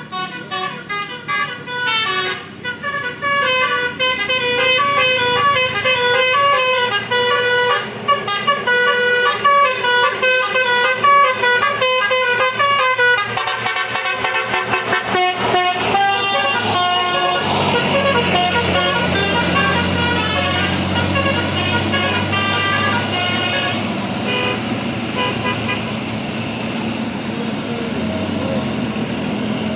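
Multi-tone 'telolet' bus horn playing a fast melody of changing notes, quickening in the middle, then stopping about halfway through; after that the bus engine runs steadily with road noise.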